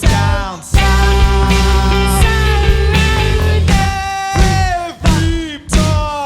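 Rock band playing live, with psychedelic-sounding notes that repeatedly slide down in pitch and a sustained heavy low section from about one to four seconds in.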